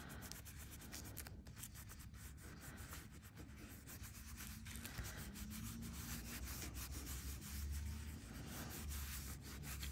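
A cloth rubbing back and forth over an aluminium metal-tape tag in many short strokes, faint. It is wiping Sharpie ink off the raised, string-textured areas.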